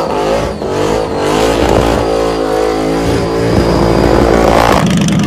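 Engine-swapped Fiat 126 revving hard through a burnout, its pitch swinging up and down as the throttle is worked. Near the end the sound cuts abruptly to a steadier, lower engine note.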